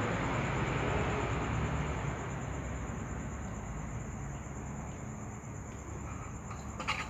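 Steady low rumble of background noise with a thin, high steady whine, easing a little after about two seconds; a few faint clicks near the end.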